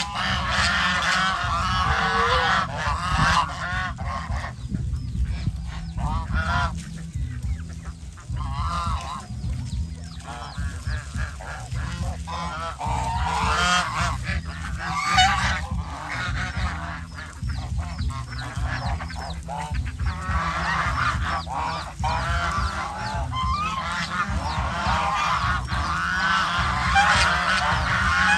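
A flock of domestic geese honking, many calls overlapping, with a few quieter stretches between bouts.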